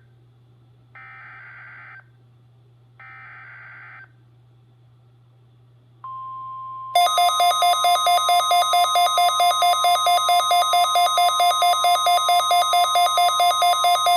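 NOAA Weather Radio SAME test header: two one-second bursts of warbling digital data tones. About six seconds in a steady single tone starts, and a second later a weather alert radio's loud pulsing electronic alarm sounds over it, about three to four beeps a second, set off by the required weekly test.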